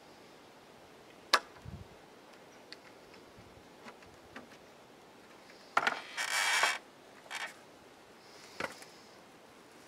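A clamp being worked on a board: a sharp click a little over a second in and a few light clicks, then a loud scraping rasp about six seconds in, a shorter one just after, and another click near the end.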